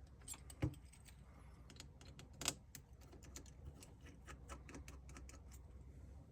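Light, irregular clicks and taps of small repair tools against a smartphone's internal parts while a motherboard screw is taken out, with two louder clicks about half a second and two and a half seconds in.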